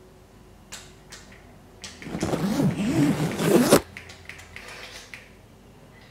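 A few light clicks, then about two seconds in a loud rasping scrape lasting nearly two seconds, its pitch wavering up and down, followed by softer handling clicks.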